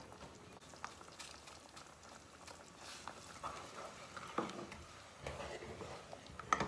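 Thick coconut-cream curry simmering faintly in the pan while it is stirred, with a few light clicks and knocks of the spoon against the pan.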